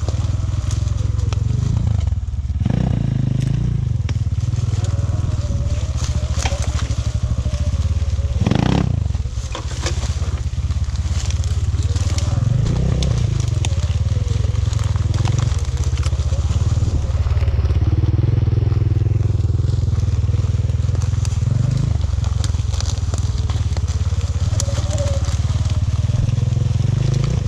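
A vehicle ridden along a forest trail: a steady low rumble, with crackling and crunching from the ground under the wheels.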